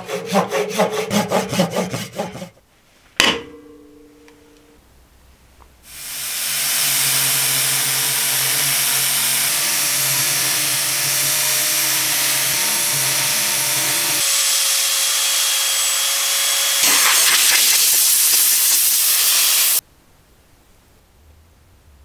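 A cloth rubbing on an epoxy resin vase in quick rhythmic strokes, then a single knock. Then a power sander with a round sanding pad sands a resin surface, running steadily for about fourteen seconds. It shifts pitch partway, gets louder near the end and cuts off suddenly.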